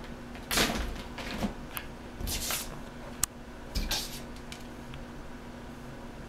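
Young kittens scuffling and pouncing, making a few short rustles and knocks against a plastic bag and the floor, with one sharp click a little past the middle.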